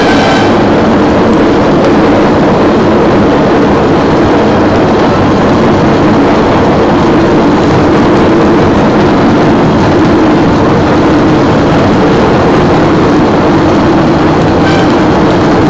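Steady, loud rumbling noise of a rail vehicle running along the track inside a tunnel.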